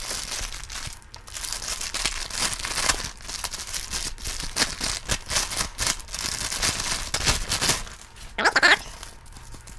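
Clear plastic wrapping crinkling and rustling as it is handled and pulled apart, in a rapid dense crackle. A brief vocal sound comes near the end.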